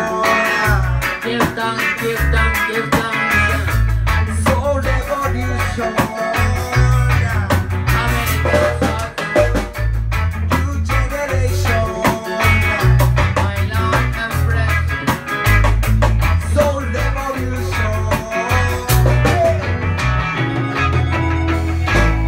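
Live band playing reggae-style music: a prominent bass line under drums, electric guitar and keyboard.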